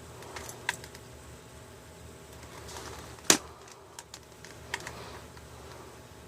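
A few scattered sharp clicks and taps, like hard plastic parts being handled, with one much louder click about halfway through.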